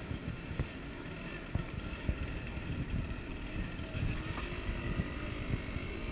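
Wind buffeting the microphone in an uneven low rumble, with faint voices of a crowd behind it.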